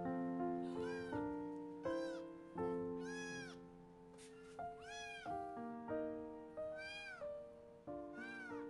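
A young kitten meowing repeatedly, about six high cries that rise and fall, over background piano music.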